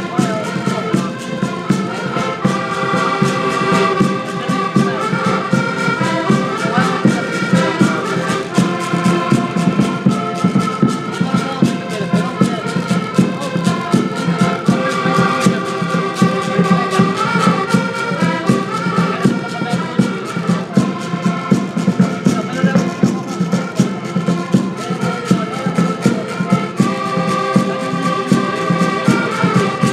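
Several accordions playing a lively Portuguese folk tune together, with a bass drum beating a steady time.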